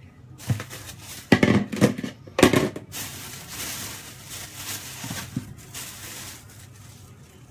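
Food being handled in a plastic bag on a kitchen counter. Several sharp knocks and rustles come in the first two and a half seconds, then the bag crinkles steadily for about three seconds.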